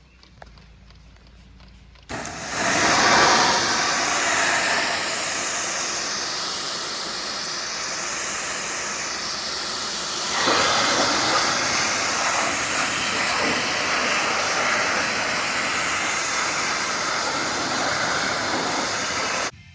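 A loud, steady hiss with a slowly swirling, sweeping tone. It starts suddenly about two seconds in and cuts off just before the end.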